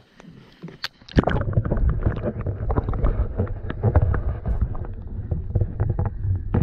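Water heard through a camera held underwater: a muffled low rumble and gurgle full of small knocks and clicks, setting in suddenly about a second in.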